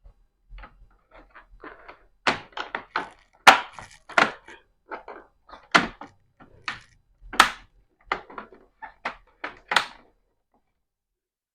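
Plastic laptop casing being closed back up: a series of irregular sharp clicks and knocks as the cover and case parts are handled, pressed and snapped into place.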